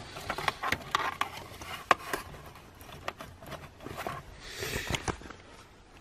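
Small clicks and rustles of a VCDS diagnostic cable being handled and plugged into an OBD-II connector, with one sharper click about two seconds in.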